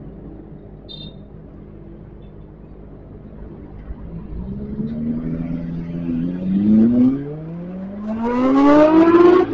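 Kawasaki ZX-25R's inline-four engine revving up through the gears, its pitch climbing in a few rising pulls, the last one the longest and loudest near the end.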